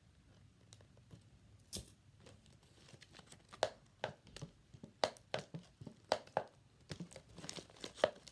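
Toy packaging crackling and tearing as a stuck piece is pulled off by hand, in irregular sharp snaps that come thicker and faster from about three seconds in.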